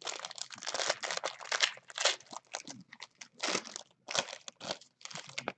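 Foil trading-card pack wrapper crinkling and tearing in the hands as it is opened, in a series of irregular crackly rustles.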